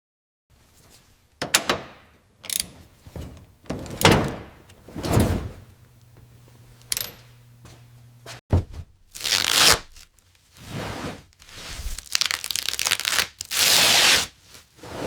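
Hands-on workshop noises: a series of knocks and clunks, then several longer hissing, scraping bursts, the loudest of them near the end.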